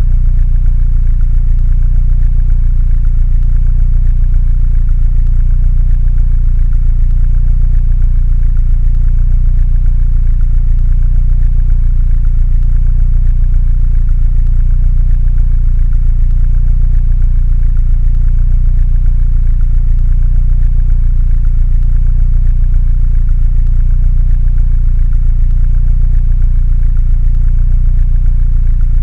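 Mini Cooper engine idling steadily with an even low rumble.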